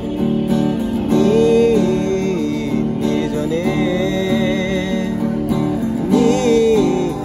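Acoustic guitar strummed as accompaniment to a voice singing long, wavering held notes of a Bengali song.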